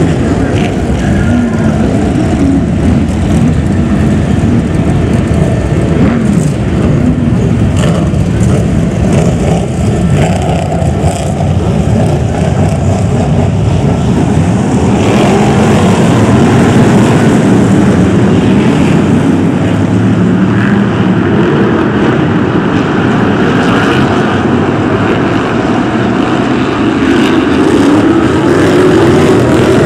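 A pack of BriSCA F1 stock cars' V8 engines running around a shale oval, the engine notes rising and falling as the cars accelerate and lift off. The sound grows louder about halfway through and again near the end.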